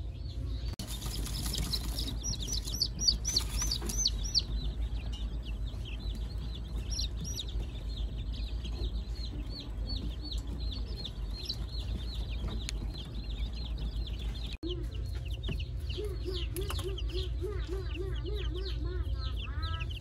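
A flock of baby chicks peeping: many rapid, high-pitched peeps overlapping without pause, over a steady low hum. Two short bursts of hiss come in the first few seconds, and a run of lower, repeated calls joins the peeping near the end.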